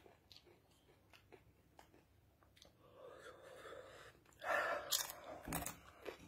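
A person chewing dry corn chips with the mouth close to the microphone: small scattered crunches, then louder chewing and breathing about four and a half seconds in.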